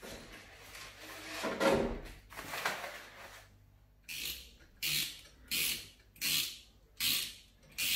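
Short rasping strokes, six in a row about 0.7 seconds apart from about four seconds in, made by hand work on an old roller blind's wall bracket as the blind is taken down. Fainter handling knocks and rubbing come before them.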